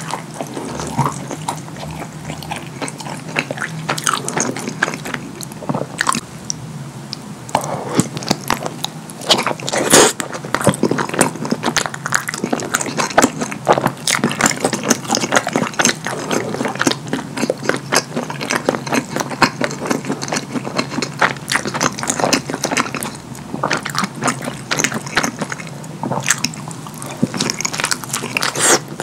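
Close-miked wet chewing and lip smacking of a person eating a chili cheese dog drenched in cheese sauce, a steady run of small sticky clicks, with one louder click about ten seconds in.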